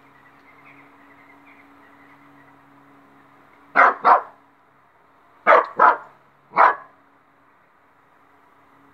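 Small dog barking in short, sharp barks: two quick barks, then two more, then one, fearful barking at a feather on the ground.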